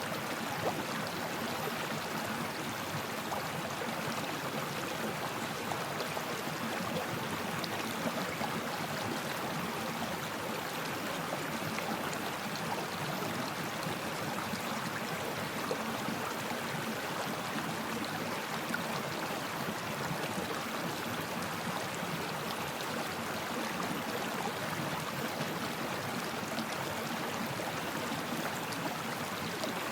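Stream water flowing steadily, a continuous even rush and babble with small scattered splashes in it.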